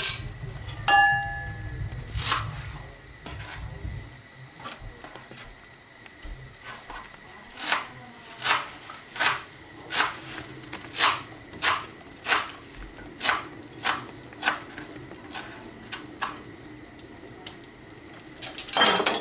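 Metal kitchen utensils and cookware clinking: one ringing metallic clink about a second in, then a run of about a dozen sharp, even taps at roughly one and a half a second, and a short cluster of knocks near the end.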